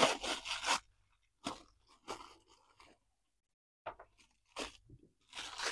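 Printed paper wrapping crinkling and tearing as it is pulled open by hand to unwrap a toy's accessories: a dense crackle in the first second, then short scattered crinkles and rustles.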